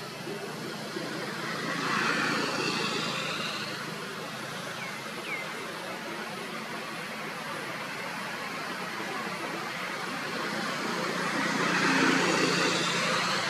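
Background traffic noise, swelling as a vehicle passes about two seconds in and again near the end. A faint short chirp comes near the middle.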